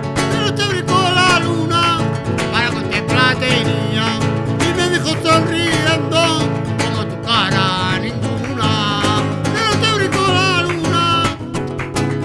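A voice singing live with a wavering, heavily ornamented melody over acoustic guitar accompaniment.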